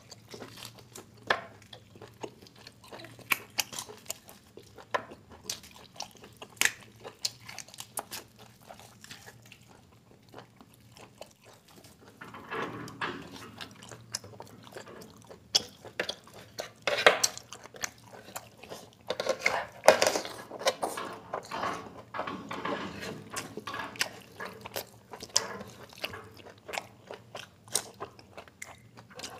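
Close-up eating by hand: chewing and biting on mutton and biryani rice, with many sharp mouth clicks. The hands tear meat and work the rice in oily curry. It grows busier and louder from about twelve seconds in.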